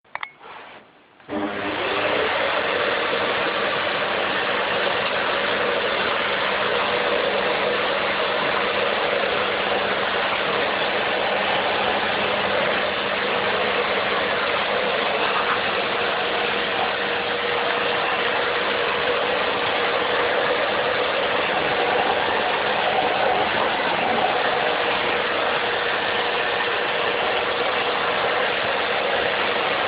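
A vacuum cleaner is switched on about a second in and then runs steadily, a constant rushing noise with a steady motor hum.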